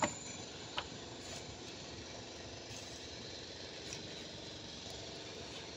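Two short clicks, right at the start and just under a second in, from a rubber turbocharger intake hose being pushed back onto its fitting by gloved hands, over a steady background hum.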